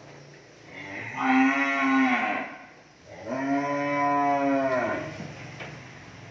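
A cow mooing twice, two long moos of about a second and a half each, with a short pause between.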